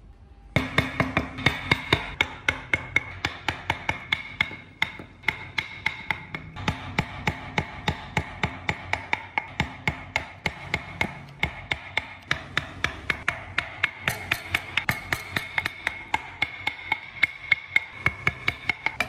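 Steel carving chisel being tapped with a mallet into a wooden wheel, even sharp knocks about three a second, each blow cutting a notch of the tread.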